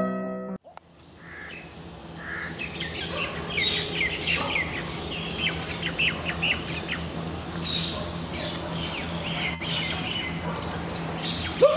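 Piano music cuts off under a second in, then birds chirp and call in trees: many short, high calls in quick succession over a steady low hum.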